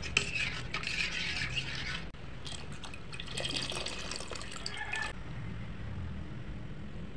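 A spoon stirring in a steel pot of coconut milk. Then a thin stream of milky liquid is poured in, splashing into the pot for a couple of seconds before the sound dies down.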